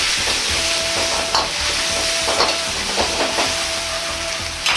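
Chicken pieces and freshly added vinegar sizzling in a hot wok while a metal wok ladle stirs them, scraping and clinking against the pan several times.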